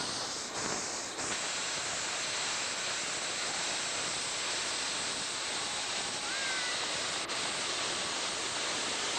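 Miniature live-steam locomotive venting steam: a steady hiss that settles in about a second in.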